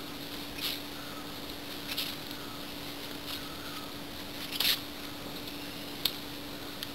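Slow footsteps scuffing on gritty earth, about one every second and a half, the fourth the loudest, over a steady low hum and hiss.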